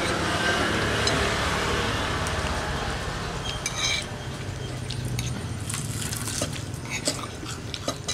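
Spoons and cutlery clinking against plates and bowls as people eat, in short scattered clicks. Under them runs the steady drone of an engine, which eases off about five seconds in.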